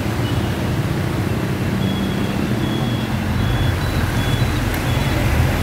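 Motorbike and street traffic running through a flooded road: a steady rumble of small engines and water noise. From about two seconds in, a faint high beep repeats about every half second.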